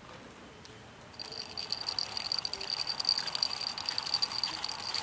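Wheeled crawling-baby toy's plastic gear train whirring as it is driven by hand, starting about a second in: a steady high whine with fast clicking.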